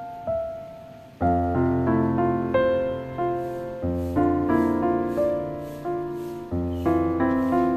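Background piano music: struck notes ringing and fading, with a low bass line coming in about a second in.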